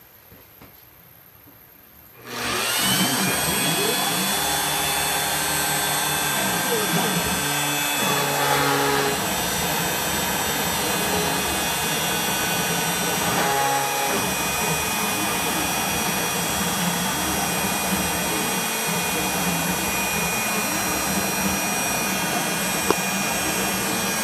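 A Bosch router on a CNC machine starts about two seconds in, its motor whining up to speed, then runs steadily at high speed with a high whine. Lower tones from the CNC's drive motors step up and down in pitch as the gantry moves the router.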